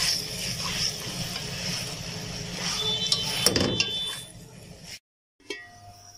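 Black slotted spatula stirring and scraping okra and minced meat around a metal pan, with clicks and scrapes over a steady hiss of frying. The stirring stops about four seconds in and the sound drops away.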